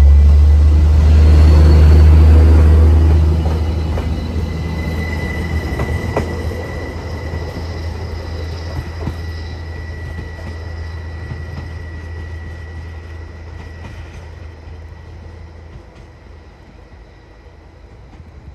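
Elron Stadler FLIRT diesel multiple unit passing close and pulling away. Its deep rumble is loudest for the first three seconds or so, then fades steadily as the train recedes. A steady high whine sounds throughout.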